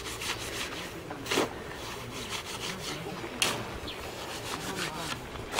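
A shovel scraping through and turning a cement mortar mix on bare ground in repeated strokes, with two louder scrapes about two seconds apart. This is the mortar being mixed for laying bricks.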